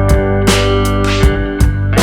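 Background music: blues-style guitar with slide notes over a steady beat.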